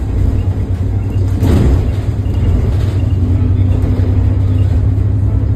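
Double-decker bus running along the road, heard from inside the top deck: a steady low rumble of engine and road noise, with a brief burst of rattling noise about one and a half seconds in and a steady hum joining about three seconds in.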